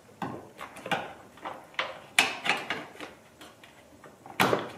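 Irregular plastic clicks and short scrapes as a plastic trim push-pin is pried out of the BMW F30's cowl trim with a trim tool. The two sharpest snaps come about two seconds in and near the end.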